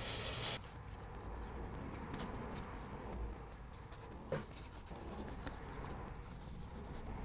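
An aerosol can of brake cleaner spraying with a hiss that cuts off about half a second in, then a shop rag rubbing and wiping over the aluminium engine-block mating surface, with a few small clicks.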